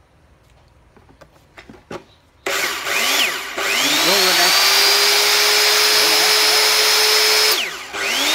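Hitachi 100 V, 1050 W saw motor run with no cut, a few light clicks first. About two and a half seconds in it gives a short burst, then a longer run that whines up to speed and holds a steady high tone. Near the end it winds down and starts again.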